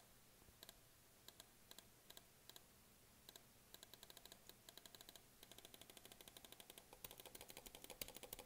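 Faint clicking of computer input: a few scattered clicks, then from about halfway in a fast, even run of clicks that quickens and gets louder.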